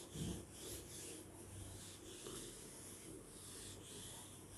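A handheld whiteboard eraser rubbing across a whiteboard in repeated back-and-forth strokes, about two a second: a faint scrubbing hiss.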